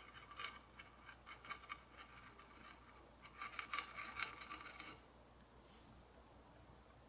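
Faint crisp ticks and scrapes of a narrow 3 mm carving knife cutting into the walnut of a stool seat, spaced out at first, then a denser, louder run of cuts about three and a half seconds in that stops about five seconds in.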